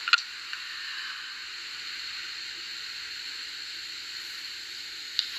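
Steady background hiss, with a sharp click just after the start and another near the end.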